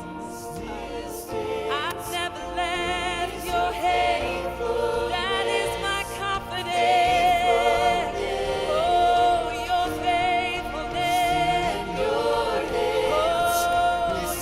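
Worship music: several voices singing slowly, with long held notes, over sustained low instrumental notes.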